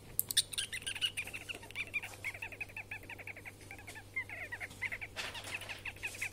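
Six-week-old ferret kit giving a fast run of short high chirps, several a second, while held in a hand.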